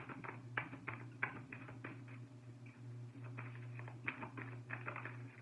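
Oracle or tarot cards being handled and shuffled: a run of light, irregular clicks and taps, several a second, over a steady low hum.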